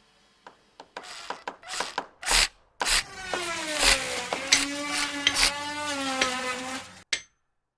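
Video intro sound clip: a run of clicks and swishes, then a pitched tone with many overtones that slides down and holds, ending abruptly.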